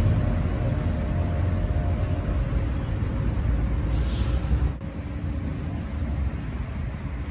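Steady low rumble of outdoor background noise, with a short hiss about four seconds in; the rumble drops a little in level near five seconds.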